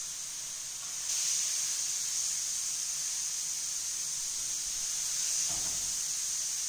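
Skirt steak searing in a very hot frying pan, a steady high sizzle that swells louder about a second in as the meat is turned. A brief knock of the pan near the end.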